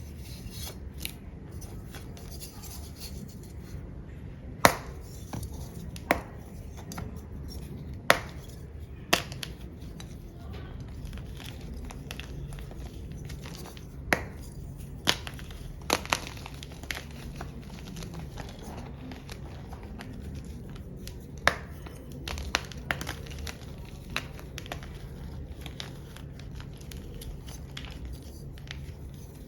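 A chunk of black-dyed gym chalk being crushed: irregular sharp crunches and cracks, a few seconds apart and sometimes in quick clusters, over a steady low hum.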